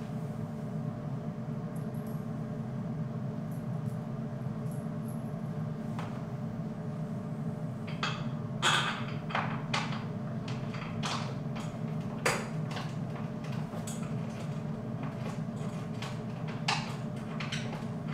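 Scattered clicks and knocks of weight-bench parts and bolts being handled during assembly, mostly in the second half, over a steady low hum.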